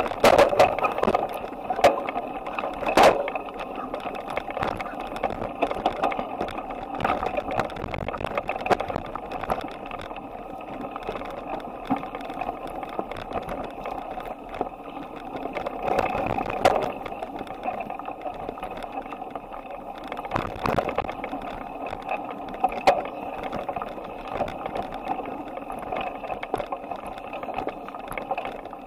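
Bicycle rolling along, heard through a handlebar-mounted camera: continuous rattling and clicking of the bike and mount over the road surface, with a few sharper knocks.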